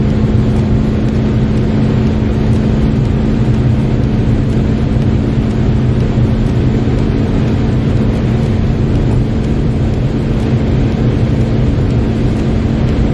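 Car engine under hard acceleration at high speed in a high gear, its pitch holding nearly steady, over loud wind and road noise.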